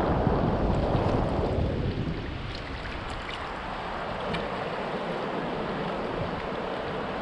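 Wind buffeting the microphone over the wash of river water around a paddled kayak. The wind drops off after about two seconds, leaving the water's hiss with a few light drips and splashes from the paddle.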